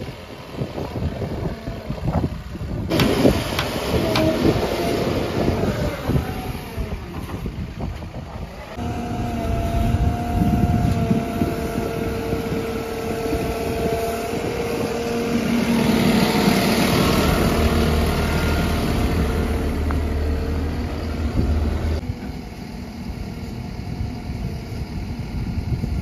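Backhoe loader's diesel engine running under load as its hydraulic backhoe arm digs and lifts soil, with a steady whine on top through the middle and the sound changing abruptly a few times; it is loudest a little past halfway.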